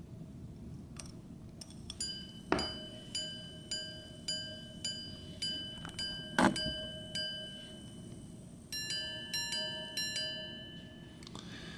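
An Arnex five-minute repeater pocket watch chiming the time on its gongs after its repeat lever clicks: ten evenly spaced single strikes for the hour, then three quicker double strikes on two pitches for fifteen minutes past. Two dull knocks sound among the single strikes.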